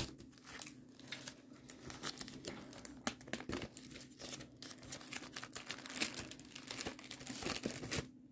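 Plastic page sleeves of a sticker book crinkling and rustling as the pages are handled and turned: a steady run of irregular, faint crackles.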